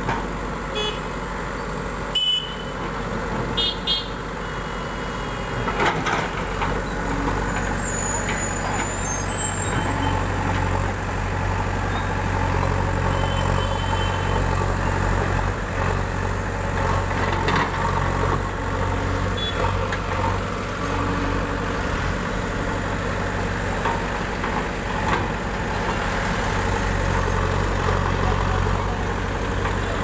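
Diesel engine of a JCB backhoe loader running steadily under working load while the backhoe digs, with a few short knocks from the bucket against rubble.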